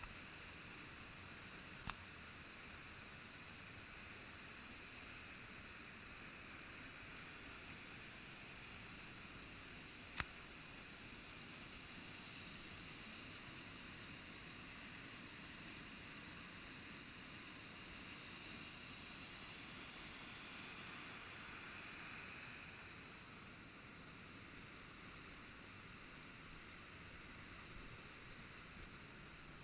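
Faint, muffled, steady rush of a waterfall, with two sharp clicks, about two seconds in and again about ten seconds in.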